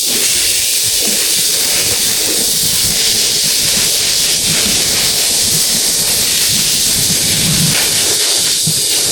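Loud, steady hiss of a high-pressure spray, typical of cleaning mud off a car.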